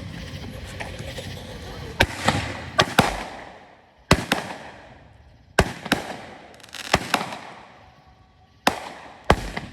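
Fireworks going off: starting about two seconds in, a series of about ten sharp bangs, several coming in quick pairs, each trailing off briefly.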